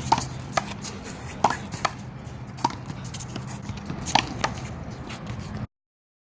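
Rubber handball smacking off players' hands and the wall during a one-wall handball rally: about seven sharp slaps at an uneven pace, over a steady low hum. The sound cuts out abruptly near the end.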